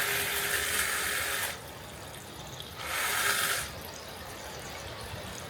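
Two bursts of hissing spray that start and stop abruptly: a long one that ends about a second and a half in, and a shorter one about three seconds in.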